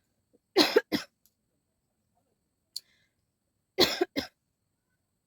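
A person coughing: two bouts of two sharp coughs each, the first about half a second in and the second about three seconds later.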